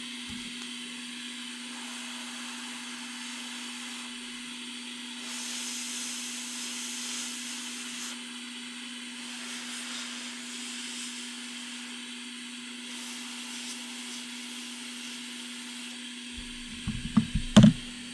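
Small electric blower running steadily, a constant low hum with an airy hiss that swells slightly for a few seconds near the middle; a few sharp knocks of handling on the bench near the end.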